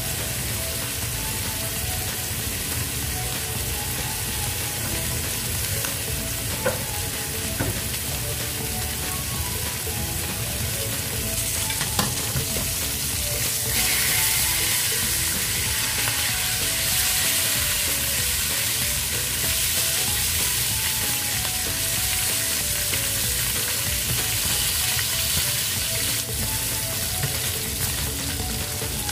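Marinated beef short ribs sizzling as they sear in an oiled frying pan, a steady frying hiss that grows louder about halfway through. A couple of sharp clicks of metal tongs against the pan as the ribs are turned.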